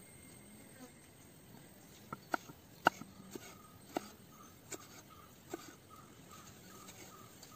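Kitchen knife slicing through a tomato and tapping down on a wooden cutting board: about seven sharp taps, starting about two seconds in, the loudest about three seconds in. Faint rhythmic chirping, about two a second, runs underneath in the second half.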